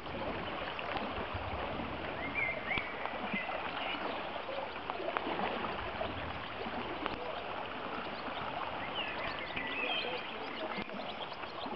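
Swollen, muddy creek rushing in flood after a heavy thunderstorm, a steady noise of fast-flowing water.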